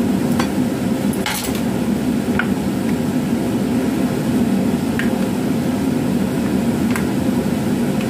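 A few light clicks and knocks of a knife, then chopsticks, against a plastic food container and a wooden cutting board, over a steady low hum.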